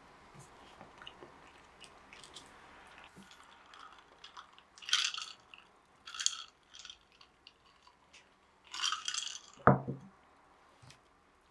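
Someone eating crisp homemade pizza: three short crunches of crust, then one dull knock near the end.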